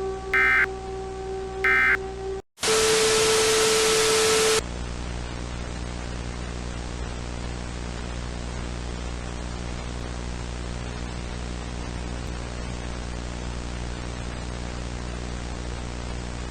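Two short data bursts of an Emergency Alert System end-of-message signal over a steady drone, then a split second of silence. About two seconds of loud harsh static with a steady tone through it follow, then quieter steady static and hum.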